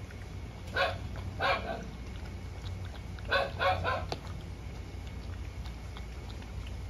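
A dog barking in short, high barks: two about a second in, then three in quick succession around three and a half seconds in.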